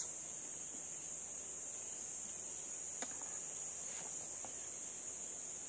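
A steady, high-pitched drone of insects. About three seconds in there is a light knock, and a few fainter ones come near the end, as star apples are set into a plastic bucket.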